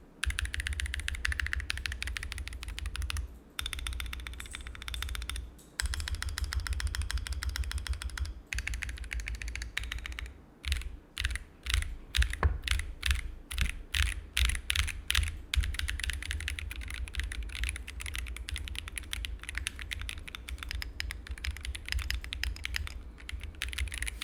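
Fast typing on an Akko ACR Pro Alice Plus ergonomic mechanical keyboard: a dense run of key clacks, broken by short pauses a few times.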